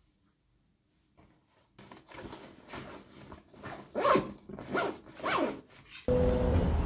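Backpack zipper pulled in three or four quick strokes, with fabric rustling, starting after about two seconds of quiet. Near the end it cuts suddenly to the steady rumble of a vehicle interior.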